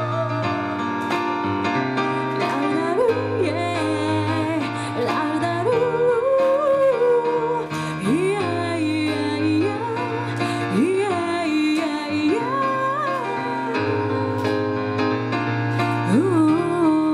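Live performance of an Okinawan song: a female voice sings a melody with vibrato and upward-sliding notes over sustained bass and keyboard accompaniment.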